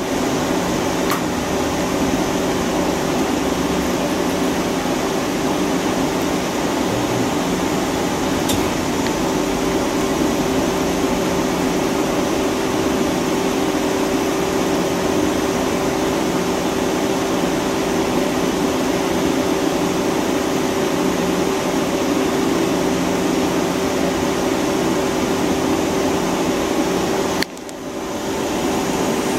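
Hyundai Kia SKT-250MS CNC turning center running: a steady machine hum with a constant mid-pitched tone over a rushing noise. The level drops sharply near the end and climbs back within a second.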